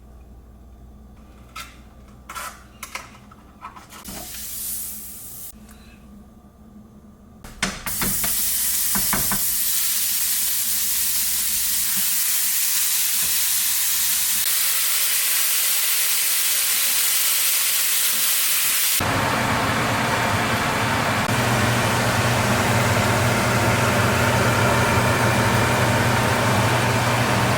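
A few knocks and clicks of cookware being handled, then food hits a hot pan and sizzles loudly and steadily as it fries. The sizzle grows fuller about two-thirds of the way in, with a low steady hum joining it.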